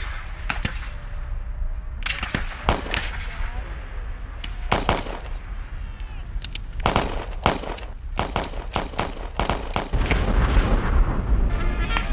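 Black-powder rifle-muskets firing blank charges in a reenactment battle volley: many separate shots at irregular spacing, some sharp and close, others farther off. A heavy low rumble builds about ten seconds in.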